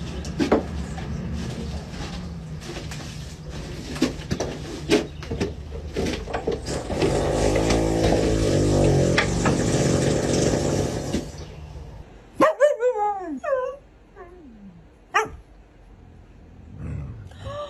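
Knocks and clatter, then a low rumbling, fluttering sound lasting several seconds. About twelve seconds in, a husky gives a few whining, yelping calls that slide down in pitch.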